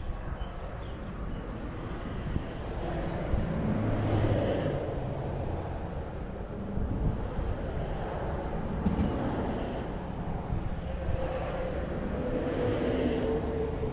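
Low, steady rumble of distant traffic with wind noise on the microphone, swelling about four seconds in and again near the end.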